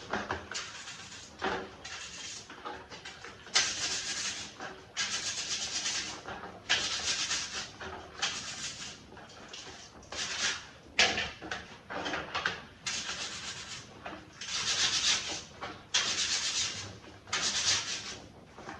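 Repeated abrasive rubbing strokes by hand, like sanding, about one a second, with a few sharp clicks in between.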